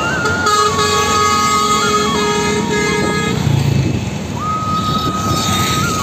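Background music: a reedy melody held in long notes that step up and down in pitch, with a short break about halfway through.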